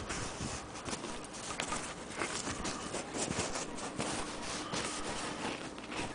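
Cloth rustling and rubbing as hands handle fabric and thread close to the microphone, with irregular small clicks and taps.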